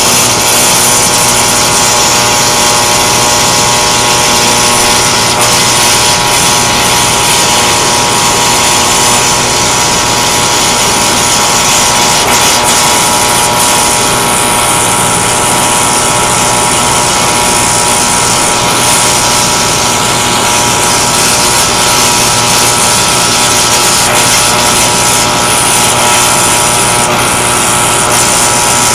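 Electric welding arc crackling and hissing steadily and loudly, with a steady hum underneath.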